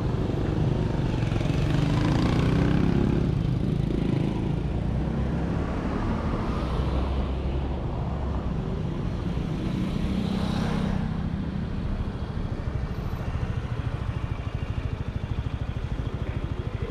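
149cc Kavan S scooter engine idling at a standstill, with other scooters and motorbikes passing close by, their engines rising and fading about two, seven and eleven seconds in.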